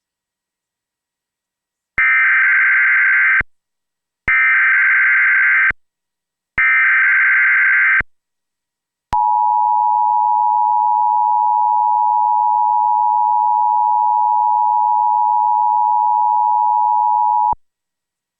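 Emergency Alert System opening: three short bursts of screeching digital data (the SAME header), each about a second and a half long, then the two-tone attention signal, a steady dual tone held for about eight seconds. Together they mark the start of an EAS alert, here a required monthly test.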